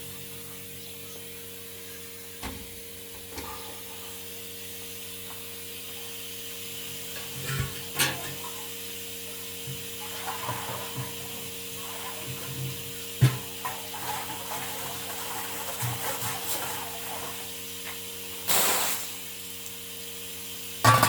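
Milking machine's vacuum system humming steadily, with scattered knocks and clanks of milking equipment and a short, loud hiss about two-thirds of the way through.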